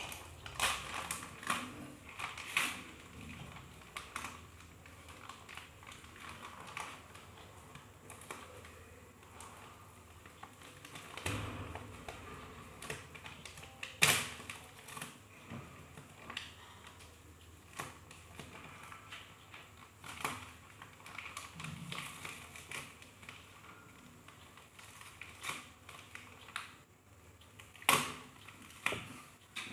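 Kraft-paper courier envelope being handled and torn open by hand: irregular crinkling and crackling paper with scattered sharp snaps. The loudest snaps come about halfway through and again near the end.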